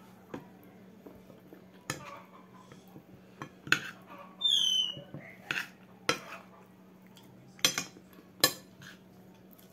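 A metal spoon clinking and scraping against a glass dish of food while eating, in scattered sharp knocks every second or so, over a faint steady low hum. About halfway through, a short high falling chirp.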